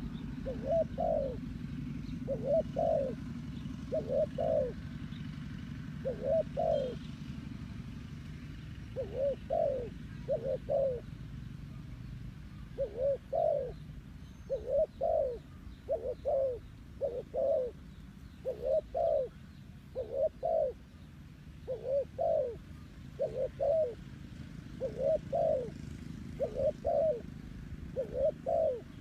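Spotted dove singing: a low cooing phrase of two or three notes, repeated every second or two, over a low steady rumble that fades after the first half.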